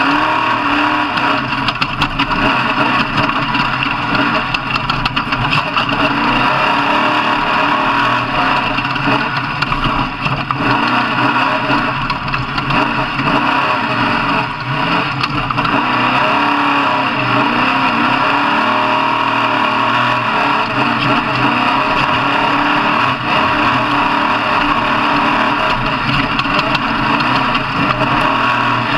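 Off-road truck engine running loud and steady, its revs rising and falling.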